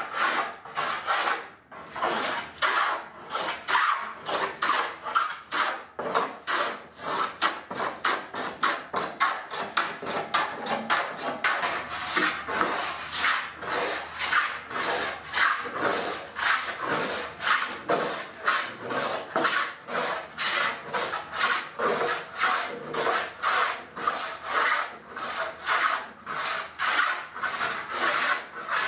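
Hand plane shaving the curved paulownia soundboard of a gayageum, in quick repeated strokes of about two a second, each a short rasping scrape of the blade through the wood. There is a brief pause about a second and a half in.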